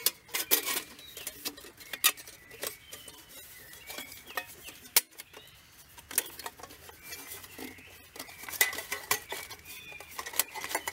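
Sheet-metal panels of a small folding wood stove clinking and rattling as they are fitted together and pinned by hand: a string of sharp metallic clicks, some with a short ring.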